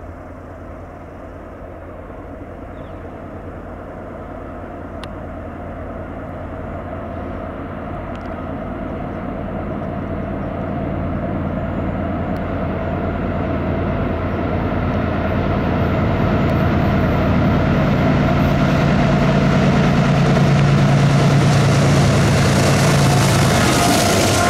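Two CSX diesel locomotives approaching at the head of a container train, their engine rumble growing steadily louder and at its loudest as they pass by near the end.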